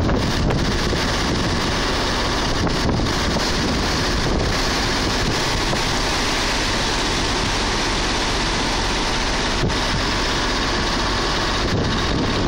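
Blizzard wind blowing across the microphone, a steady rushing noise, with vehicle engines idling beneath it.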